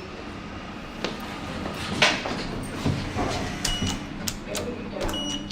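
Indistinct background voices with several sharp clicks, a steady low hum starting about three seconds in, and two short high beeps near the end.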